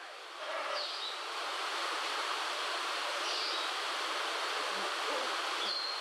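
A steady hissing rush of noise that comes up about half a second in and holds evenly, with a couple of faint, short, high chirps over it.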